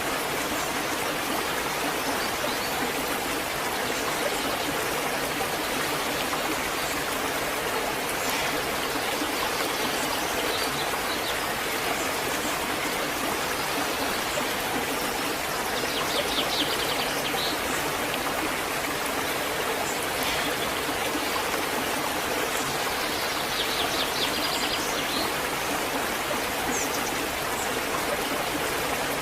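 Waterfall, water rushing and splashing at a steady level. A bird trills briefly about halfway through and again a little later.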